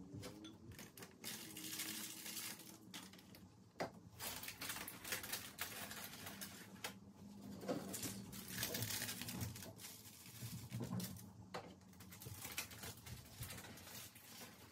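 Soft rustling with scattered small clicks and taps: hands handling paper envelopes, a small plastic tube of mites on vermiculite, and the plants' leaves.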